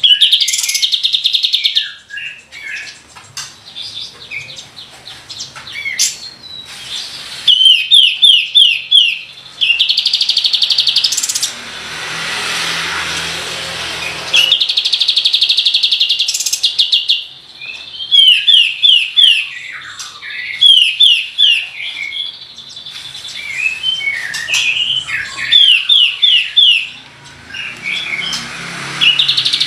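Kapas tembak (light-vented bulbul) singing hard: bursts of very fast rolling trills alternate with runs of quick, falling whistled notes, repeated over and over. About halfway through comes a loud, rasping noisy stretch of about two seconds.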